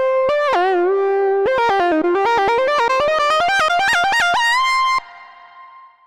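Moog Subsequent 25 analog synthesizer playing a single-line lead patch: notes gliding into each other with vibrato, then a fast run of short notes stepping up and down, about eight a second, ending on a held high note that stops about five seconds in and fades away.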